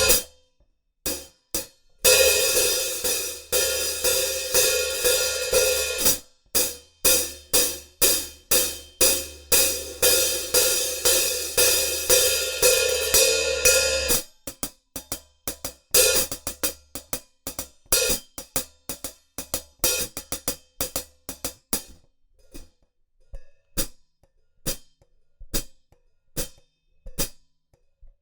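Sabian HHX Stage 14-inch hand-hammered hi-hat cymbals struck with hickory drumsticks: a stretch of sustained, washy ringing with many strokes, then separate crisp strokes that grow quieter and sparser toward the end.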